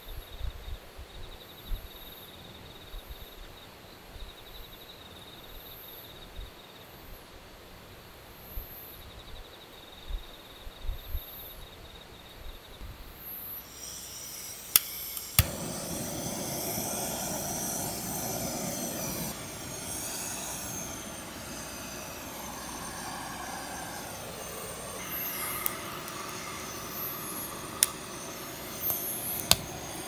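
Night insects trilling steadily with a few soft knocks. About halfway through, two sharp clicks, then a handheld butane gas torch hisses steadily as its flame is held on firewood kindling to light it, with a few sharp clicks near the end.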